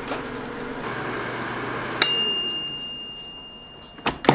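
Air fryer running with a steady whir, then its mechanical timer bell dings once about two seconds in and rings out, fading over about two seconds: the signal that the set cooking time is up. Near the end come a couple of sharp plastic clunks as the fryer basket is pulled out by its handle.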